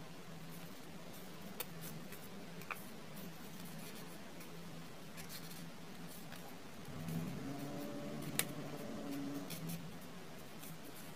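Sheet of 10 cm origami paper rustling and crackling as it is handled and creased, with a few sharp crinkles over a low steady hum. About seven seconds in, a faint drone joins for two or three seconds.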